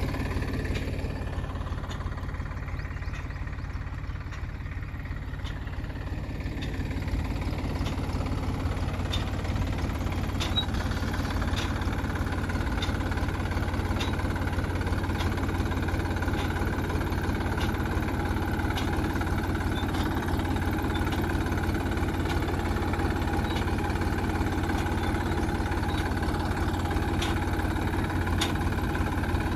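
Tractor engine running steadily while towing a plastic-mulch laying machine over the beds. The drone dips a little a few seconds in and comes back up, and there are faint regular ticks about once a second.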